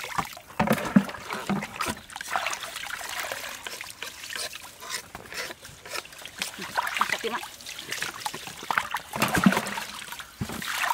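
Water splashing and trickling in a metal basin as whole fish are rubbed and lifted out, water pouring and dripping back off them in uneven splashes.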